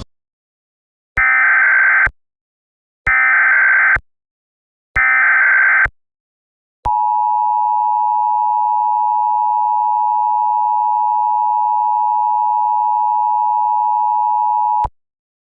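Emergency Alert System header: three one-second bursts of digital data tones about a second apart, then the two-tone attention signal held steady for about eight seconds. This sequence signals the start of a new emergency alert.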